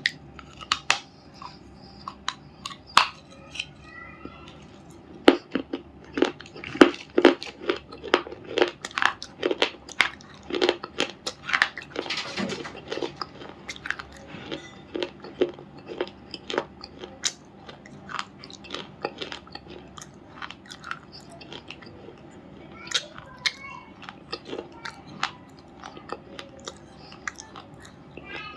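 Someone biting and chewing crunchy lumps of black unshaped stone: a run of sharp, crackling crunches. They come thick and loud for the first half and then thin out to scattered crunches.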